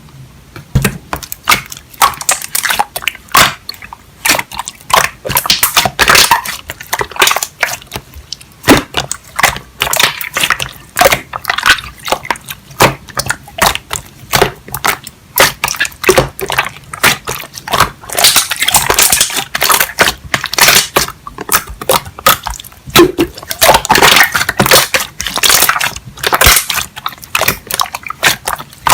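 Slime being squished and worked by hand, giving a dense run of sticky clicks and crackling pops.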